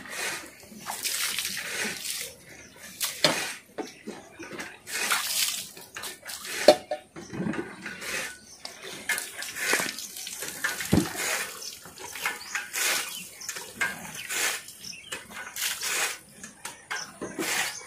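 Water poured from a steel mug over a water buffalo's back, splashing onto the animal and the ground in repeated short splashes every second or so. A couple of sharp knocks come partway through.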